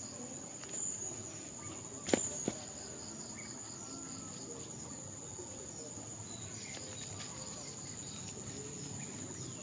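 Steady high-pitched insect chorus, with a single sharp knock about two seconds in.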